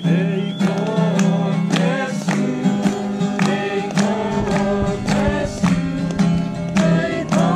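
A group of voices singing together to an acoustic guitar, with hand claps keeping a steady beat about twice a second.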